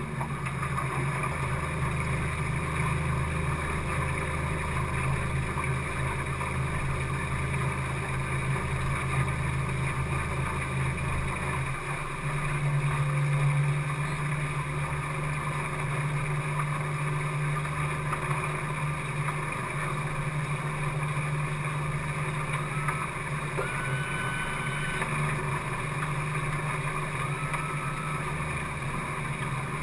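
A 50 hp outboard motor drives a small boat along at cruising speed, running steadily under the rush of water and wind. About twelve seconds in, its low hum shifts to a slightly higher note.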